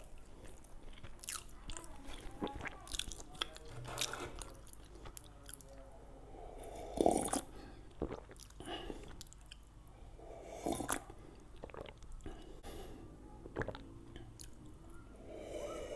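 A person chewing and biting homemade donuts close to the microphone, with many short wet smacks and clicks. A few louder bites come about 7 and 11 seconds in.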